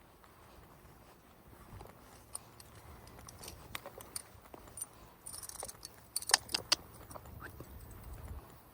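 Metal jingling and clinking from dog leads and collar tags, with scattered light clicks and a denser run of sharp clinks about two-thirds of the way in.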